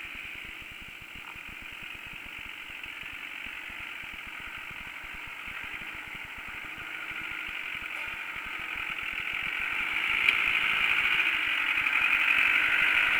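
Land Rover Discovery's engine running at low revs as the 4WD crawls over rutted dirt, growing steadily louder as it comes closer, with a sharp click about ten seconds in.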